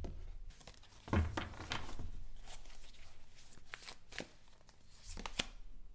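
A deck of tarot cards being shuffled by hand: a run of irregular card slaps and rustles, the loudest about a second in.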